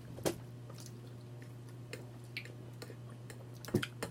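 Close-miked eating sounds: chewing with a few short, sharp wet smacks, the loudest near the end, over a steady low hum.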